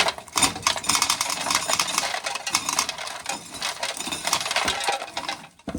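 Corn sheller stripping an ear of corn, the kernels rattling off in a dense, continuous clatter of small clicks that stops suddenly near the end.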